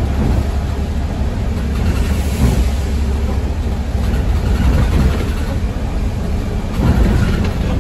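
ADL Enviro200 MMC single-deck bus running, heard from inside: a steady low engine and road rumble with rattly cabin noise over it.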